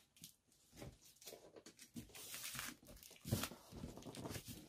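Hands tearing and pulling at a delivery box's packaging in irregular rips and crinkles, the box being forced open without scissors.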